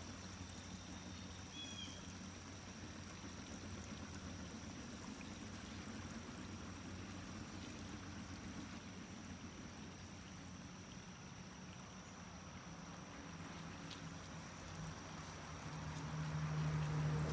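Water running and trickling steadily over a low hum and a steady high-pitched whine. A short bird chirp comes about two seconds in, and the low hum grows louder over the last couple of seconds.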